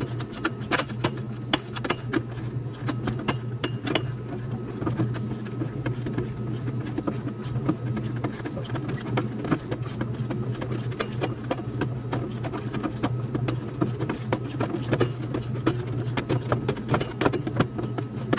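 Ratchet wrench clicking rapidly as a bolt on the steel tail-lamp bracket is turned, in quick repeated bursts, over a steady low hum.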